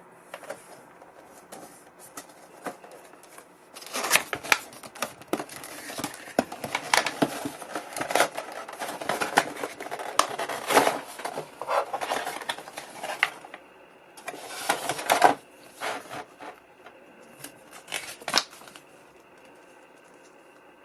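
Packaging being opened and handled by hand: rustling and crinkling with scattered sharp clicks. It is densest from about four to thirteen seconds in, comes again briefly around fifteen seconds, and gives way to a few last clicks.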